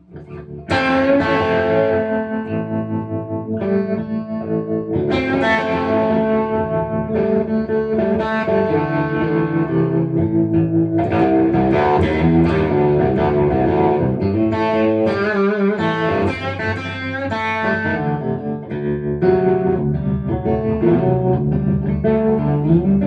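Jerry Jones baritone electric guitar played through a 1961 Fender Tremolux amp: a slow 12-bar blues, starting about a second in.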